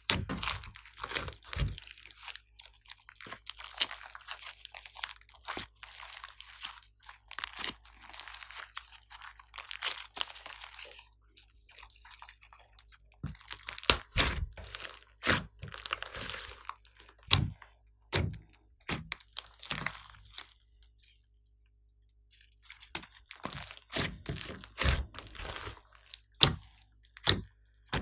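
Hands squeezing, kneading and poking a big mound of fluffy slime, giving dense runs of sticky crackles and pops. The crackling comes in uneven spells, with a short pause about a third of the way in and another about three quarters of the way in.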